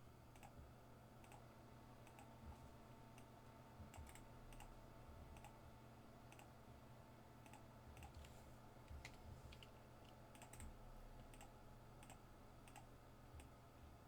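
Faint, irregular clicks of a computer mouse and keyboard over a low steady room hum, as a list is randomized on screen.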